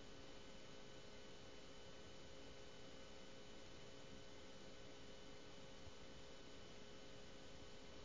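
Near silence: a faint steady hiss with a faint hum of a few steady tones underneath.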